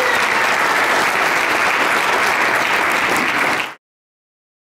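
Audience of high school students applauding in an auditorium. The applause cuts off suddenly near the end.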